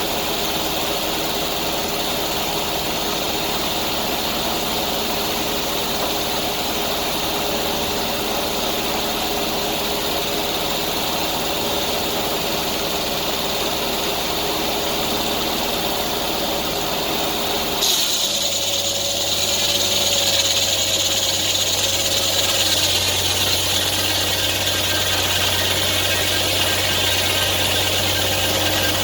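Engine running steadily. About two-thirds of the way in there is a sharp click, and the sound changes abruptly to a different steady running sound with a high whine and a low hum.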